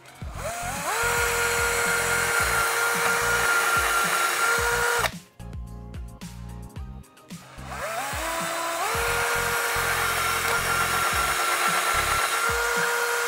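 Bosch cordless drill boring two holes into the wall, one after the other. Each run spins up with a rising whine, holds steady for about five seconds, then cuts off suddenly, with a pause of about two seconds between them.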